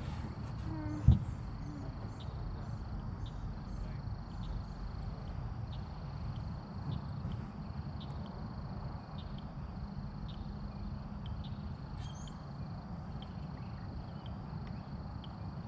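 Outdoor pond ambience: a steady high insect trill with short breaks, a bird chirping several times in the first few seconds, and a steady low rumble underneath. A single sharp knock sounds about a second in.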